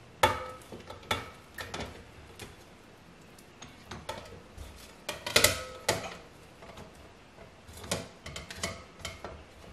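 A spatula knocking and scraping melted cheese out of a bowl into a stand mixer's glass bowl: irregular clinks and taps of dishware, some ringing briefly, the loudest about five and a half seconds in.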